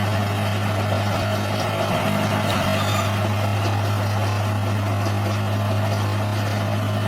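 Heavy earthmoving machine's diesel engine running steadily with an even low drone.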